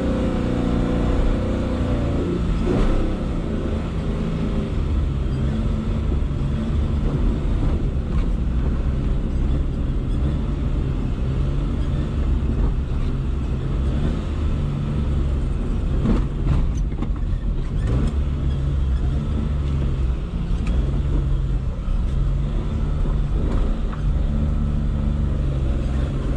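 Suzuki Khyber's 993 cc three-cylinder G10 petrol engine running as the car drives along, heard from inside the cabin. The engine note falls in the first couple of seconds, then wavers up and down with the throttle. A few brief knocks come about two-thirds of the way through.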